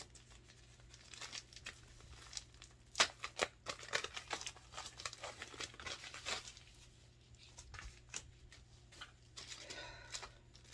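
Packaging crinkling and rustling in quick bursts as a parcel is unwrapped by hand.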